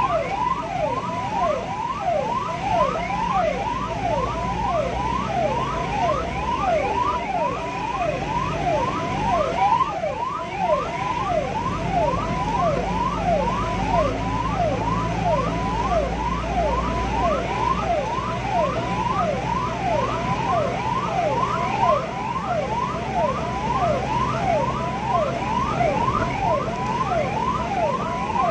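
Ambulance's electronic siren on a rapid yelp, sweeping up and down several times a second without a break, over the low rumble of the vehicle's engine and road noise.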